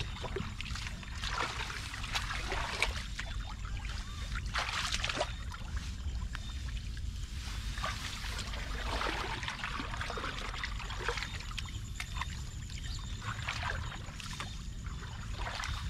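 Water splashing and trickling in irregular bursts over a steady low rumble.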